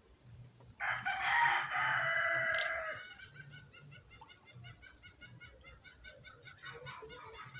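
A rooster crows once, starting about a second in and lasting about two seconds. After it comes a quick run of short high peeps.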